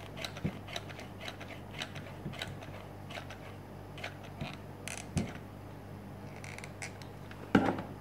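Hot glue gun's trigger mechanism clicking irregularly as glue is squeezed out, then a sharper knock near the end as the gun is set down.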